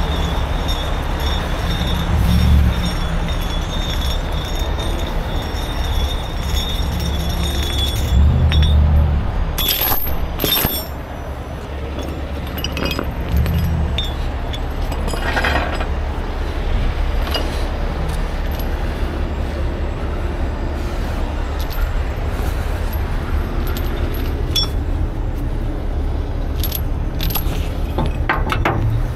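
A heavy diesel truck engine running steadily, with occasional metallic clinks and rattles of recovery chain being handled, most of them near the end.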